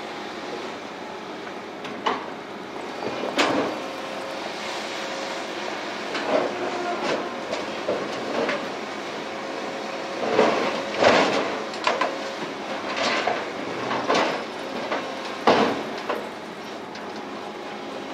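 Genesis hydraulic shear on an excavator working a pile of scrap structural steel: irregular metal clanks, bangs and scrapes as the jaws grab, shift and bite the steel, over the steady hum of the machine. The clanking comes thickest in the second half.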